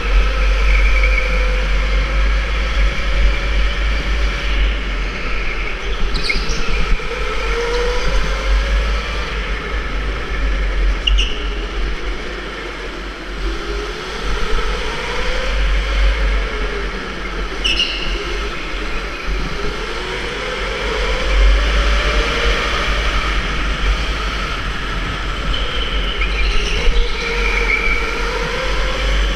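Electric go-kart motor whining, its pitch rising and falling as the kart speeds up along the straights and slows for the corners, over a steady low rumble. A few brief high squeaks cut in now and then.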